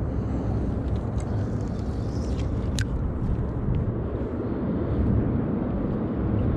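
Steady low rumbling of wind on the microphone, with a few light clicks from handling the spinning rod and reel, the sharpest about three seconds in.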